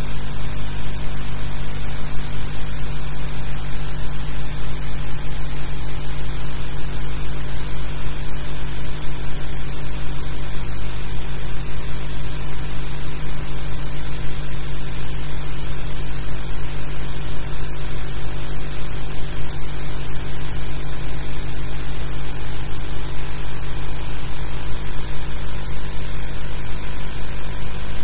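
Steady hiss with a low mains hum underneath, unchanging throughout and with no other sound: the noise floor of an old film soundtrack transfer.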